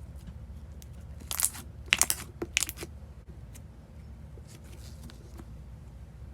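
Frosted-texture slime being squeezed and pressed by hand, giving a quick run of three or four short crackly pops about a second and a half to three seconds in, with a few faint clicks, over a steady low hum.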